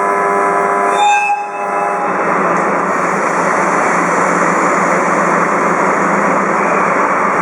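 Loud, steady running noise of a train, with a held horn-like chord of several steady tones that breaks off about a second and a half in.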